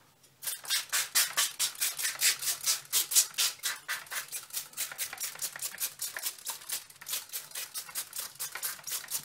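Hand-held plastic spray bottle misting water onto paper towels, squeezed in quick repeated spritzes of about five a second, starting just under half a second in.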